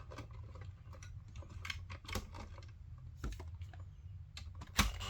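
Small irregular clicks, ticks and rustles of electrical wires and fittings being handled and worked into an outlet box, with a sharper click near the end.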